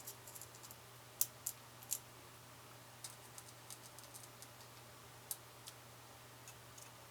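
Scattered light clicks and taps of metal and plastic being handled, from the Mossberg 500 shotgun with its side saddle just fitted. The sharpest come about a second in, twice more before two seconds, and again around five seconds. A faint steady hum sits underneath.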